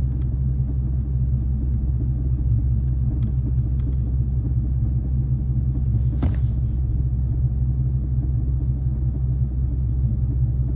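Car engine fitted with a ProCharger supercharger, running steadily with a low rumble, with one brief sharp sound a little past the middle. The owner asks about a whirring, grinding noise heard since the supercharger install; its cause is unknown.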